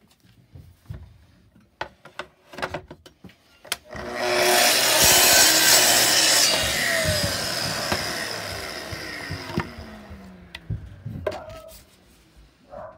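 Festool TS55 plunge track saw starting about four seconds in and cutting a small wooden piece along its guide rail. About two seconds later it is switched off, and the motor winds down with a falling pitch. Clicks and knocks of the rail and workpiece being handled come before and after the cut.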